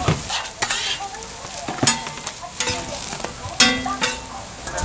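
Hamburger patties and a bun frying on a flat-top griddle, a steady sizzle broken by several sharp metal clinks and scrapes on the griddle, the loudest near the end.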